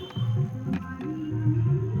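Background music: a low melody of held notes changing in steps.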